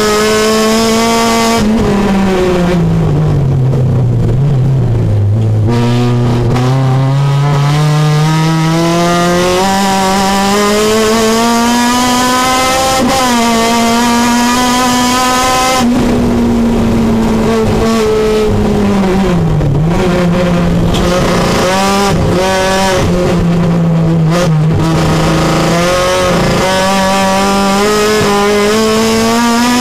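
Supercharged Honda K24 four-cylinder engine of a race-prepared Civic at full load on track, heard from inside the cabin. The revs fall over a few seconds near the start under braking and downshifts, then climb steadily for about ten seconds with brief dips at gear changes. They drop again about two-thirds of the way through, then rise once more at the end.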